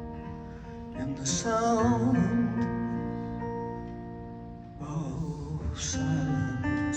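A live song: acoustic guitar notes ringing on, with a man singing over them and holding a wavering note about a second and a half in.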